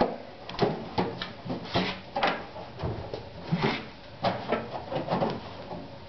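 Sheet-metal cabinet of a microwave oven being handled and worked open, giving a string of irregular metallic knocks, clanks and rattles.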